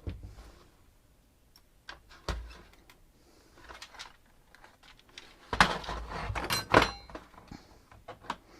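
Knocks and clatter from a docking station and tools being handled while it is taken apart: a single thud about two seconds in, then a burst of knocking and rattling a little over halfway through.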